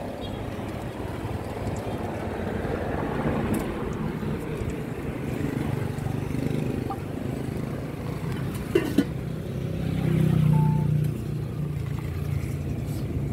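Road traffic: a steady low engine hum that swells as a vehicle passes about ten seconds in. Two sharp clicks shortly before.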